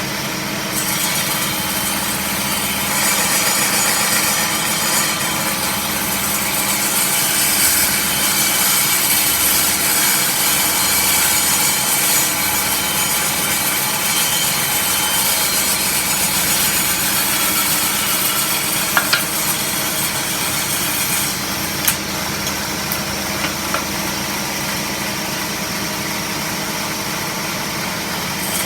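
Table saw running with its blade cutting through wood for about twenty seconds, then spinning on with no load; a few sharp clicks near the end.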